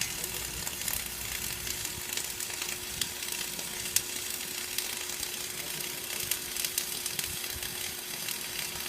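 Electric arc welding in progress: the arc crackles and sizzles steadily, with frequent sharp pops, as a bead is laid on a three-pass weld. A faint steady hum runs underneath.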